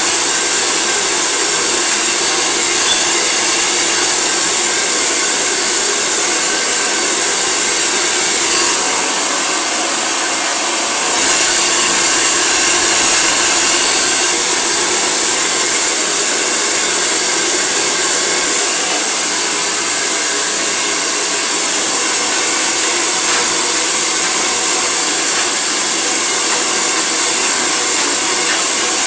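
Hair dryer running steadily, blowing on wet hair during blow-drying; it dips briefly in level about nine seconds in, then comes back up for the rest.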